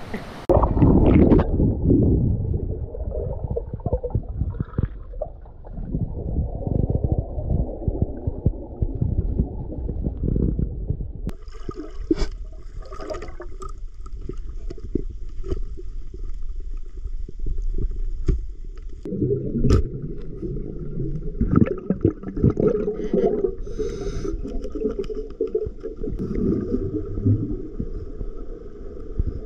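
Muffled sloshing and gurgling of water heard through a camera held underwater, a dense low rumble with little treble. The rumble thins out for several seconds in the middle, then returns.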